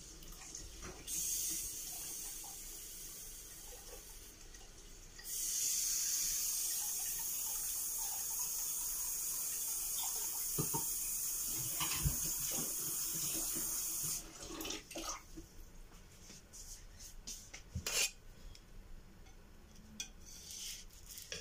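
Kitchen tap running into the sink while dishes are rinsed. It comes on about a second in, runs harder from about five seconds and is shut off about fourteen seconds in, followed by a few light clinks of dishes and metal utensils.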